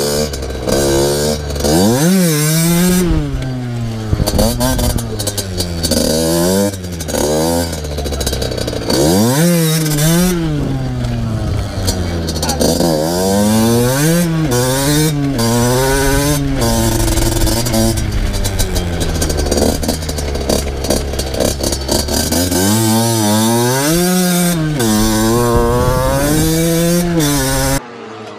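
Two-stroke motocross bike engine revving hard and backing off again and again, its pitch climbing and falling with each throttle burst and gear change. The sound drops away sharply near the end.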